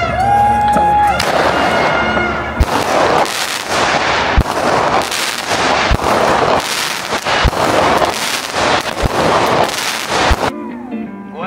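Aerial consumer fireworks firing and bursting, with dense crackling and a sharp thump about every second and a half. The crackling starts about a second in and cuts off suddenly near the end.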